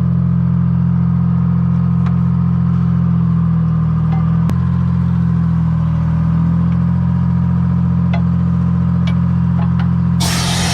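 Engine running at a steady speed, with a few short knocks over it. About ten seconds in, a sudden rush of broad noise comes in and the engine pitch shifts slightly.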